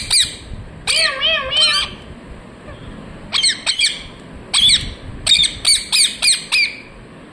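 Ringneck parrot (rose-ringed parakeet) chirping in quick bursts of short calls, with a pause of about a second after the first few and a run of rapid calls in the second half.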